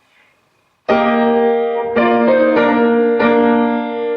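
Piano playing sustained chords, entering suddenly about a second in, with new chords struck roughly every second.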